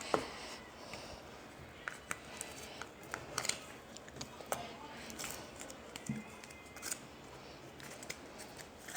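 Slime being squished and poked by hand, giving scattered small clicks and crackles at irregular intervals.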